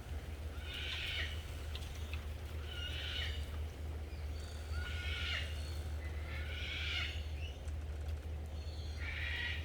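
An animal calling five times, each call about half a second long and roughly two seconds apart, over a steady low rumble.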